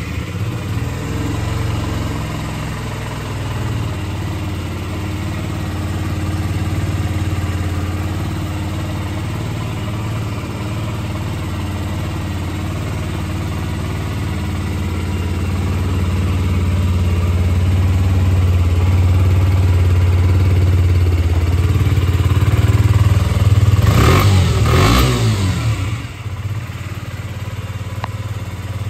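KTM Duke 125's fuel-injected single-cylinder four-stroke engine idling steadily, with one short throttle blip, rising and falling, near the end.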